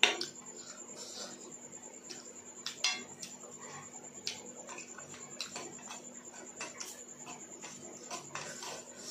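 A white plastic spoon clicking and scraping in a small stainless-steel bowl of curd, with soft eating sounds; the sharpest clink comes right at the start and another a little under three seconds in. A faint steady high whine sits underneath.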